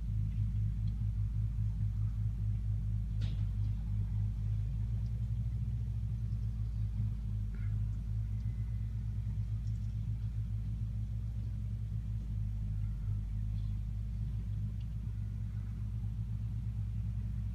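Tractor diesel engine running at a steady pace, heard as a low, even rumble, with a few faint ticks.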